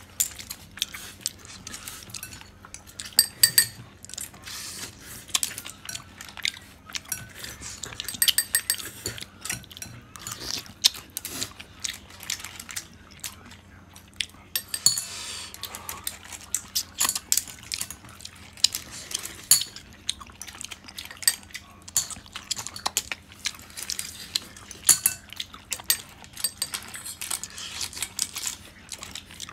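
Chopsticks picking through cooked clams in a stainless steel bowl, the shells clicking against each other and against the bowl. Many irregular light clicks and taps, some with a brief metallic ring.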